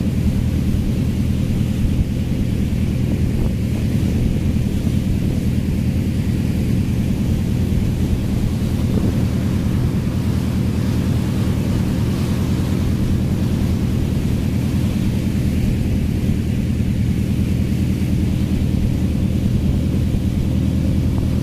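Fishing boat's engine running steadily at cruising speed, an even drone, with water rushing past the hull.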